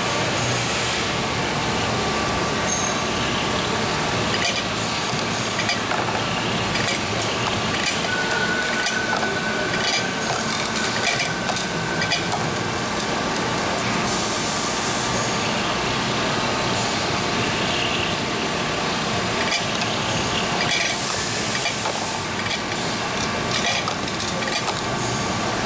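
Royal Master TG-12x4 centerless grinder running, thrufeed grinding carbide rods between a diamond grinding wheel and the regulating wheel under flood coolant: a steady wash of machine, grinding and coolant noise, with brief surges of hiss about midway and near the end.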